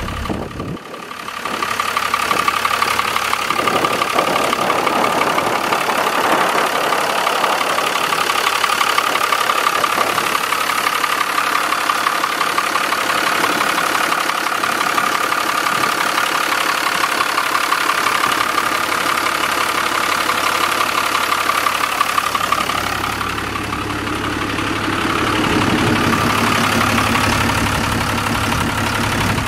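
Turbocharged diesel engine of a 2000 Freightliner fuel truck idling steadily. Its sound turns deeper and fuller about 23 seconds in.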